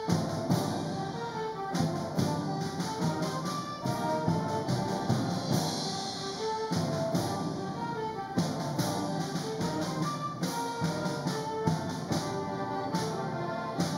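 A school orchestra of violins, cellos, brass and percussion playing a piece, with sustained string and brass notes and frequent percussion strikes.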